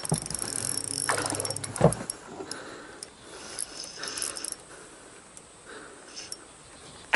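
Spinning reel clicking as a large bass is played on the line toward the landing net, with a single loud thump about two seconds in.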